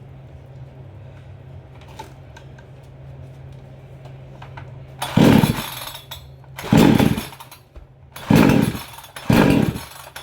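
Two-stroke chainsaw being pull-started: four loud pulls of the recoil starter about a second and a half apart, each a short burst that falls away without the engine running on. The engine had flooded and its spark plug was burned dry before these pulls. A low steady hum fills the first half before the pulls begin.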